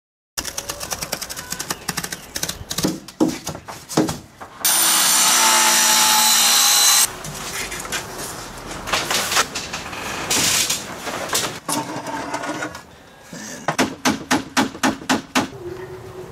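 Workshop tool noise: scattered knocks and clicks, a power tool running steadily for a couple of seconds, then a quick run of about five strikes a second near the end.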